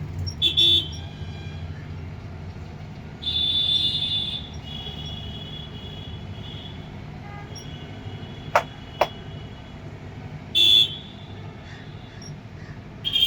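Street traffic: vehicle horns honk over and over, one held for about a second, over a steady low engine rumble. Two sharp clicks come close together about two-thirds of the way in.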